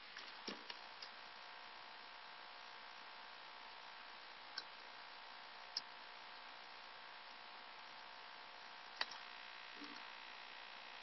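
Steady hiss and faint hum of a low-quality webcam recording, with a few small faint clicks and taps scattered through, the clearest about nine seconds in.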